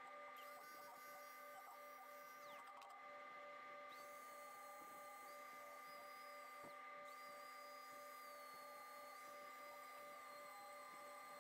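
Near silence: only a faint steady electronic hum with a faint evenly pulsing tone.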